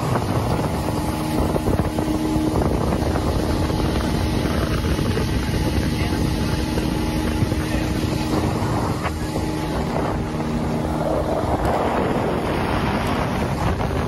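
Speedboat motor running steadily at speed. Water rushes past the hull and wind buffets the microphone.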